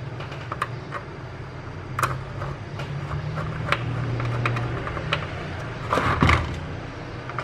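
Scattered light clicks and knocks of induction cooktop parts being handled and fitted during reassembly, over a steady low hum, with a louder scrape about six seconds in.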